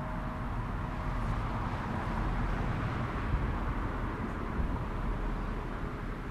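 The last hum of a church bell dies out in the first half second. It leaves steady outdoor noise with a low rumble that swells in the middle and eases off, as a vehicle passes.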